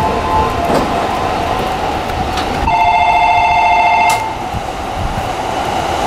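Seibu 10000 series New Red Arrow limited express running past on a nearby track with a steady rumble. About two and a half seconds in, a loud two-note train horn sounds for about a second and a half and cuts off abruptly.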